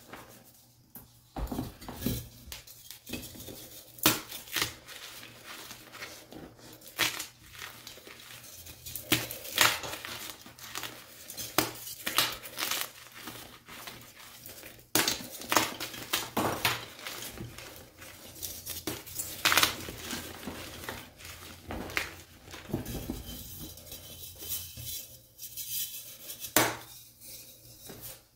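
Blocks of plain and dyed gym chalk crushed and crumbled by bare hands: irregular sharp crunches, several a second at times, with dry crumbling and gritty rattling of broken pieces between them.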